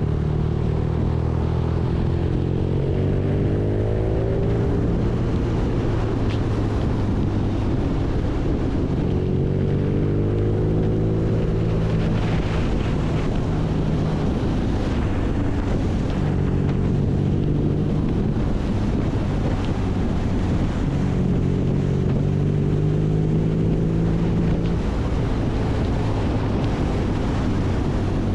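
BMW R nineT's 1170 cc air/oil-cooled boxer twin running under way, its note rising and levelling off several times as the bike accelerates, with wind rushing over the microphone.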